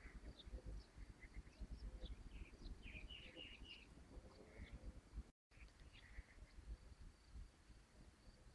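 Faint outdoor ambience of small birds chirping in short calls, thickest about three seconds in, over a low rumble. The sound drops out completely for a moment about five seconds in.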